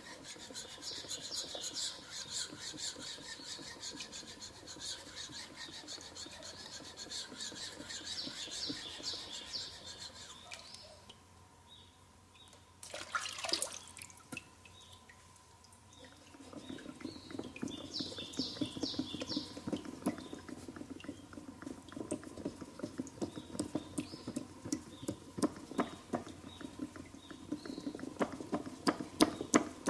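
A hand-plane blade being rubbed back and forth on a wet natural whetstone, a wet scraping with small metal clicks. It goes quiet for a few seconds about eleven seconds in, then the strokes resume with a lower, fuller grinding sound.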